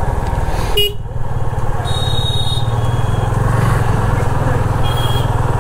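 Yamaha FZ25's single-cylinder engine running steadily while riding at an even speed, over road noise. A short high tone sounds about two seconds in, and a briefer one near the end.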